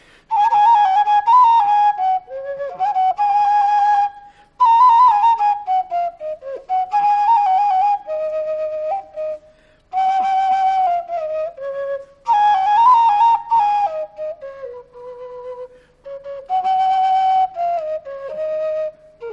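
Solo flute playing a slow, ornamented melody in phrases of a few seconds, with wavering, falling phrase endings and short pauses between phrases.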